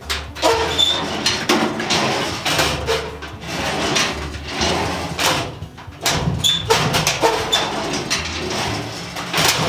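Steel filing cabinet drawers sliding open and shut on their runners, with several sharp clunks as they stop. There is no screech now that the lock's latch is back down in place.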